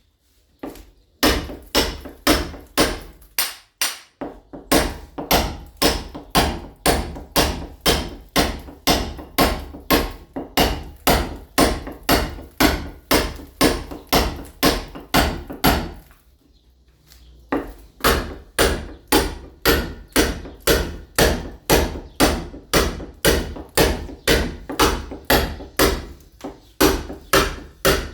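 A club hammer striking a steel chisel against a masonry wall in rapid, even blows, about three a second, with a pause of about a second and a half roughly two-thirds of the way through. This is a painted wall being chipped and roughened so that ceramic tile will bond to it.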